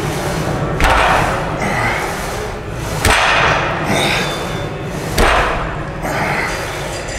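Plate-loaded barbell knocking down onto the power rack's pins between rack-pull reps: three sharp thuds about two seconds apart, each followed by a brief noisy tail.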